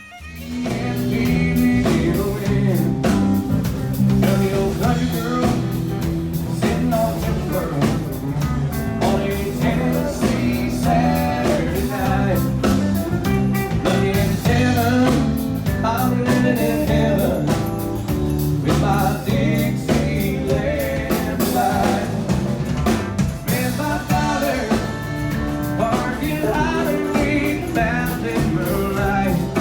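A band playing a song with a singer, drums, bass and guitar, cutting in suddenly at the start and going on at a steady beat.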